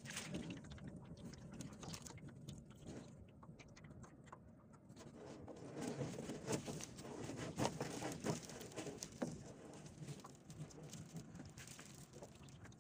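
Fishing net and plastic sheeting being handled by hand: rustling with many light taps and knocks, busier and louder partway through.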